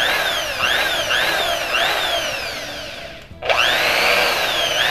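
Electric drill with a 3 mm bit boring a pilot hole into the edge of an MDF board. The motor whine repeatedly rises and sags as the bit bites into the wood. It stops briefly a little past three seconds, then spins up again.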